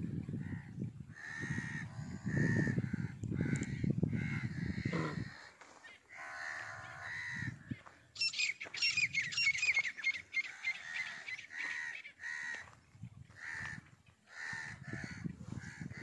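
Repeated short, harsh animal calls, one after another, with a quick run of high falling chirps about eight seconds in. A low rumbling noise lies under the first five seconds.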